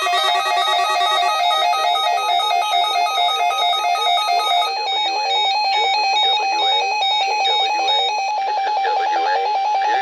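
Emergency alert tones from weather radio receivers during a Required Monthly Test: electronic alarm beeps alternating in pitch, several tones overlapping. About halfway through, the pattern changes to a single steady, rapidly pulsing tone.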